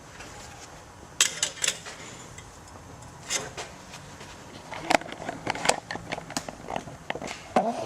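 Irregular light clicks and knocks of tools and parts being handled during transmission valve-body work, a few at first and a denser run in the second half.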